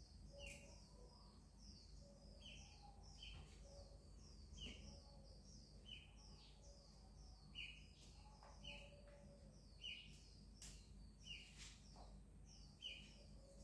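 Faint chirping of small birds: a short call repeats about once a second, with quicker chirps above it, and a few soft clicks now and then.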